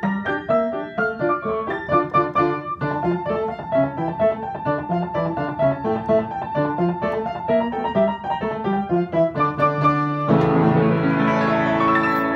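Acoustic piano played four hands as a duet, a quick, steady run of detached notes in both treble and bass. About ten seconds in it lands on a loud full chord that is left to ring and slowly fade.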